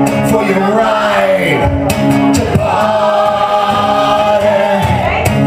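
A man singing live with his own acoustic guitar accompaniment, holding one long note in the second half.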